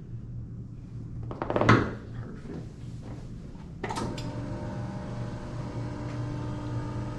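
Knocks and a rattle of equipment being handled on a treatment table. About four seconds in, a steady hum with several tones starts and keeps going.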